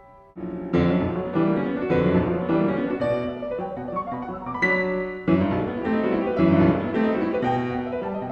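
Piano music: a run of struck notes and chords that begins about half a second in.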